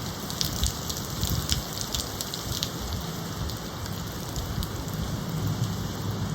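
Steady rain with gusting wind, a low rumble under an even hiss, and many sharp drop ticks crowding together in the first half.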